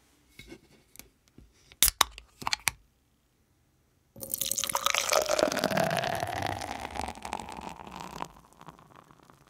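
A beer can's ring-pull clicking and cracking open in a few sharp snaps about two seconds in. From about four seconds in, Sapporo beer pours from the can into a tall glass, splashing and fizzing as the foam rises, then tails off near the end.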